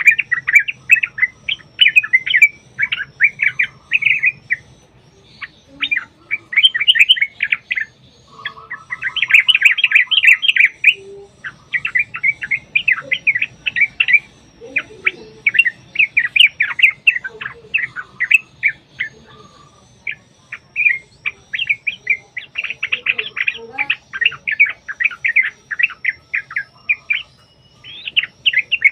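Yellow-vented bulbuls (trucukan) singing in long, rapid chattering runs of bubbly notes, burst after burst with short pauses between. This is the excited, continuous 'ropel' song used as a lure.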